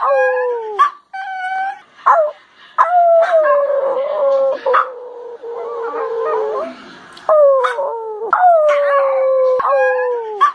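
Puppies crying: long, loud whining howls that slide down in pitch, broken by short sharp yelps, with cries overlapping in the middle.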